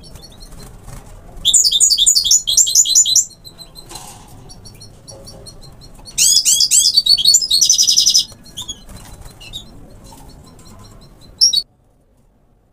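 European goldfinch of the North African subspecies parva singing: two bursts of rapid, high twittering song, the second ending in a buzzy trill, with scattered single call notes between and one short sharp call near the end.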